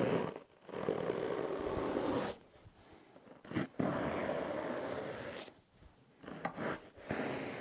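A long kitchen knife sawing by hand through thick upholstery foam: a noisy scraping in several long strokes of about a second and a half each, with short pauses between.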